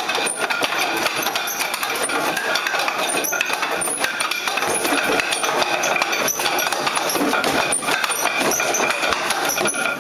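Wooden kung fu training dummy being struck in a rapid, continuous run of wooden knocks and clacks, as arms hit its wooden arms and trunk.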